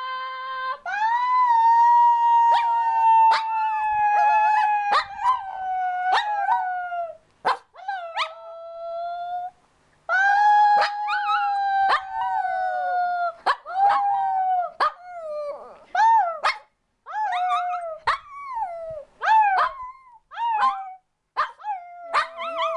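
Shih Tzu puppy howling along with a person's high, howling cries. Long drawn-out wails slowly fall in pitch, then break into shorter rising and falling cries in the second half.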